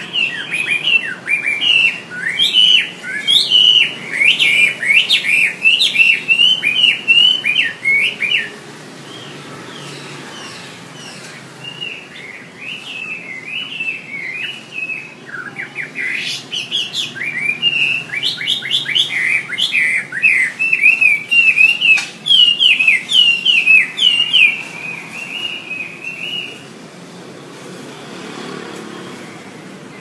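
Chinese hwamei (Garrulax canorus) singing: long runs of rapid, varied whistled phrases, breaking off for a few seconds about eight seconds in, then resuming and stopping shortly before the end.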